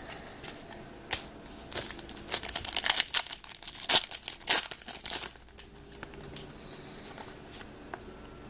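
Trading card pack wrapper being crinkled and torn open: a dense run of crackles from about two to five seconds in, loudest near the middle, then a few light handling sounds.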